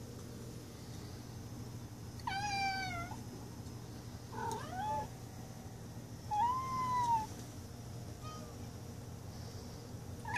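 Domestic cat meowing to beg for food: three clear meows about two seconds apart, then a faint fourth.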